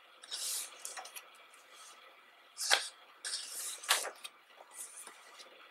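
Photobook pages turned by hand: papery swishes and several sharp paper snaps and taps, the two loudest about a third and two thirds of the way through, as a page flips over and is pressed flat.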